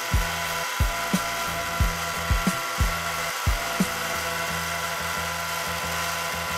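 Mini lathe running with a steady whine as an aluminium rod turns against a cloth held to it by hand for polishing. Irregular short low thuds come every half second or so in the first few seconds, then stop.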